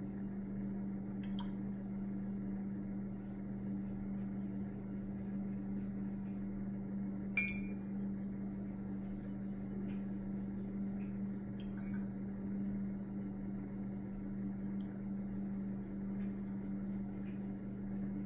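A steady low hum, with one sharp clink about seven seconds in.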